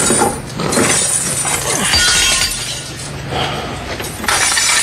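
Window glass being smashed: shattering and breaking over a couple of seconds, with a second burst of breaking near the end.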